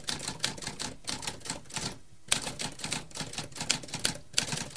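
Typewriter typing: a quick, irregular run of key strikes, with a brief pause about two seconds in followed by one sharp strike, then more typing.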